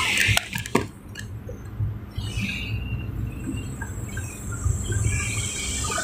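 Steady low engine and road rumble from inside a moving vehicle, with a few sharp clicks in the first second and scattered faint short high chirps.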